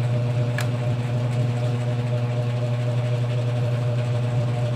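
Steady low electrical hum of a running ceiling fan's motor, with one faint click about half a second in.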